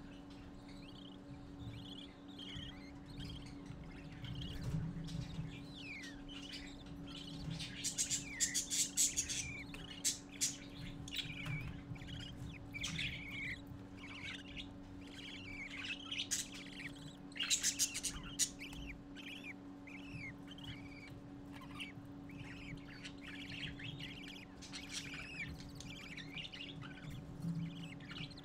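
Budgerigar chicks and an adult budgie chirping and twittering in many short, quick calls. There are two louder, noisier outbursts of calling, about 8 and 17 seconds in.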